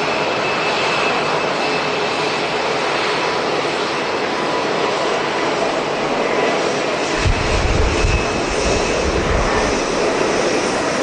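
Jet airliner engines heard as a steady noise with a faint high whine. About two-thirds of the way through, gusts of strong wind start buffeting the microphone.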